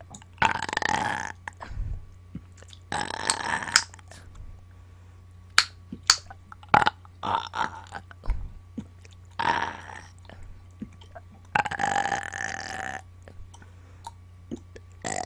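A woman burping on command: about five long, loud burps a couple of seconds apart, with short sharp clicks in between.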